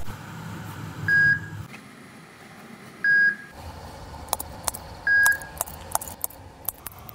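Three short electronic beeps on one steady tone, one every two seconds, like a patient heart monitor. From about four seconds in, a scattered run of sharp clicks from metal surgical instruments at work on the stitches.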